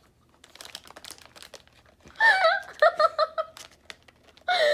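Plastic packaging of a squishy crinkling as it is handled, then a girl laughing with high, gliding pitch from about two seconds in and again near the end.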